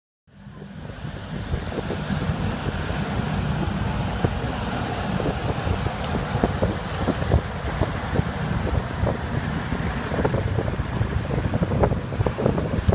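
A vehicle driving: a steady low rumble of engine and road noise with scattered knocks and rattles and some wind on the microphone. The sound fades in at the start.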